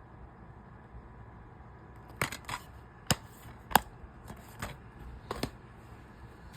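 Plastic DVD case being handled: a string of about seven sharp clicks and snaps starting about two seconds in, the loudest near the middle.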